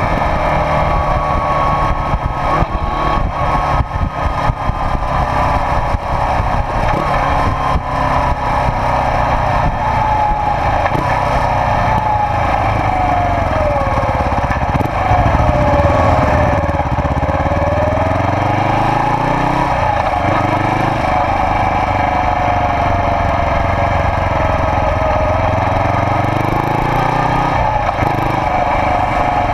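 1991 Suzuki GS400E's air-cooled 400 cc parallel-twin engine running under way, heard through a one-off silencer. The engine note sinks slowly through the first half, then rises and drops again as the bike pulls away and shifts gear.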